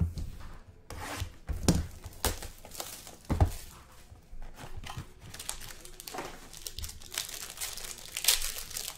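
A trading-card box is handled on a tabletop with a few sharp knocks. Then a foil card-pack wrapper is torn open and crinkled, the crinkling growing denser and louder near the end.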